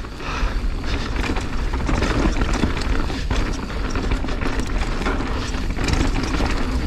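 Mountain bike riding fast down a dry dirt singletrack: a steady rush of tyres on dirt and wind, with frequent clicks and rattles from the bike over bumps.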